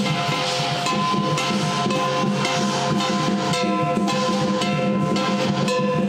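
Traditional Chinese lion dance percussion band playing: a large drum beating with crashing cymbals and a ringing gong, dense and steady strikes throughout.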